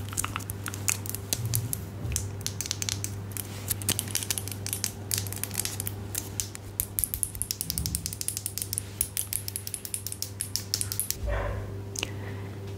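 ASMR trigger sounds close to the microphone: rapid, irregular crisp clicks and taps, several a second. They stop about eleven seconds in with a low thump.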